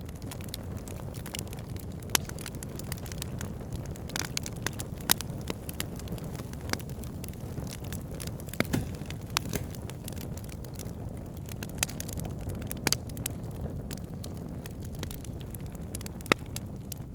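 Campfire burning, with a steady low rumble and irregular sharp snaps and pops of crackling wood, a few of them much louder than the rest.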